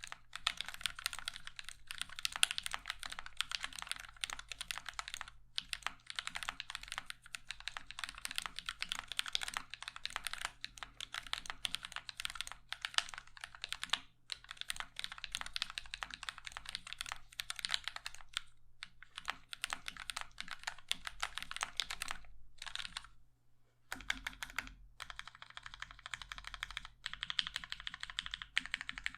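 Fast continuous typing on a mechanical keyboard with lubed linear switches (UHMWPE stems in Cherry MX housings, 65 g springs) and blank ABS keycaps in an acrylic case, giving a sound with more clack than thock. The typing stops briefly a few times, with one longer pause about two thirds of the way through.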